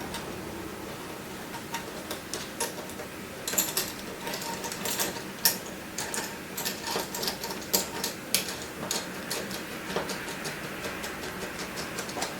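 Liquid-tight conduit connector and its fittings being handled and screwed onto flexible conduit: a run of quick small clicks and rattles, busiest from about three to nine seconds in.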